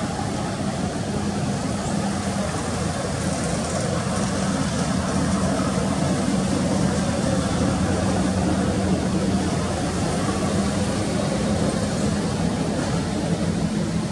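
A steady engine drone with a constant low tone, unchanging throughout.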